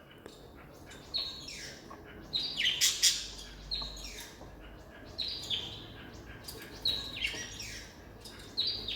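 Budgerigars chirping: repeated short calls that fall in pitch, coming in bursts every second or so.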